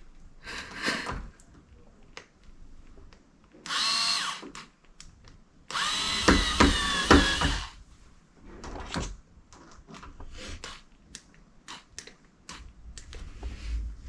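Cordless power screwdriver running in two short bursts, about one second and then about two seconds, its motor whine shifting in pitch as it drives a screw into the door lever, with small clicks and knocks of handling around it. The screwdriver has no power, and the job is then done by hand.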